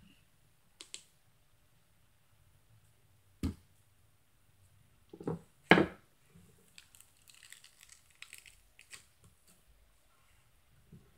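Black slime pressed by hand through a wire mesh grid: a few sharp squishy pops, the loudest a little over halfway through, then a run of small crackling clicks.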